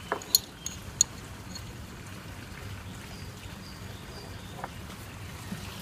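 Metal spatula clinking against the inside of a glass jar, four or five sharp ticks within the first second, while a piece of sodium is fished out of the liquid it is stored in. A steady low background rush runs underneath.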